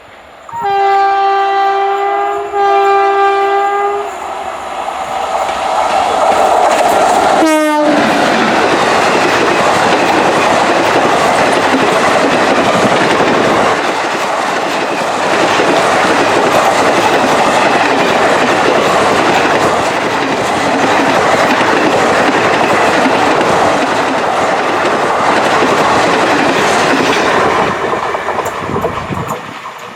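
WAP4 electric locomotive hauling an express train, sounding its horn in two blasts. The train then rushes past at speed, its wheels clattering over the rail joints, with the noise fading near the end.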